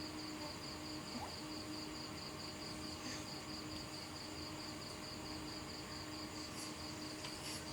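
Insect chirping in a fast, even, high-pitched pulse that runs on without a break, over a faint steady low hum.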